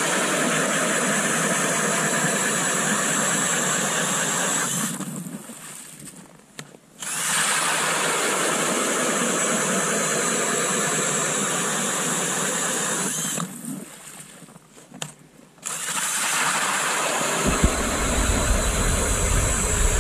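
DeWalt 20V XR brushless cordless drill spinning an Eskimo 8-inch auger through lake ice. It runs in three long stretches with two pauses of about two seconds between them. A deeper low rumble joins in for the last couple of seconds.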